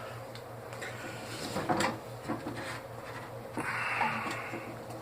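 Metal tool clinking and scraping against a tight brass fitting as it is worked loose from an air compressor, with a longer rasping scrape about three and a half seconds in. A steady low hum runs underneath.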